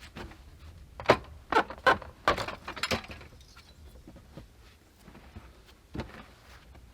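A quick run of sharp knocks and clatters starting about a second in and lasting about two seconds, followed by a few scattered single taps.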